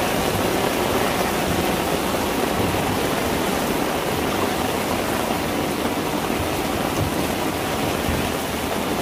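Heavy rain pouring down, a steady even wash of falling water with no breaks.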